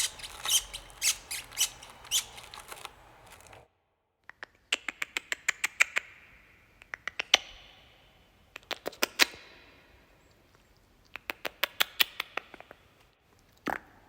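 Recorded small-animal squeaks: short, sharp, high squeaks in quick runs of several a second, in about five bursts with short pauses between.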